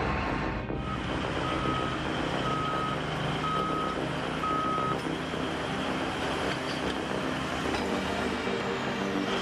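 A heavy vehicle's reversing alarm beeping four times, about once a second, then stopping, over the steady running of its engine.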